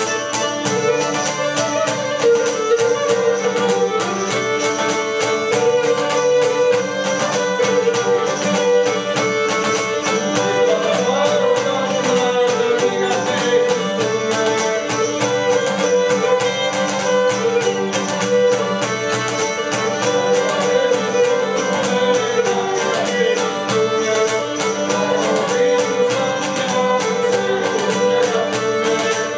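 Cretan lyra bowed in a traditional Cretan tune, accompanied by a laouto strumming a steady rhythm.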